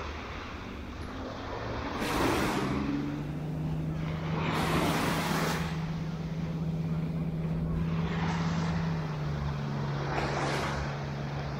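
An engine drones steadily at one low pitch, dropping slightly in pitch near the end. Small waves break and wash in on the shore several times.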